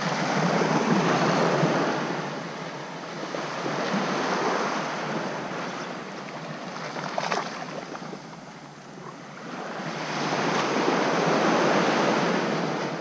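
Small surf breaking and washing up the sand, rising and falling in slow surges: loudest near the start, again around four seconds in, and over the last three seconds.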